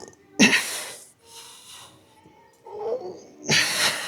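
A weightlifter's hard, forceful breaths while straining through reps of a heavy pulling set. Two loud exhalations come about three seconds apart, with a short grunt just before the second.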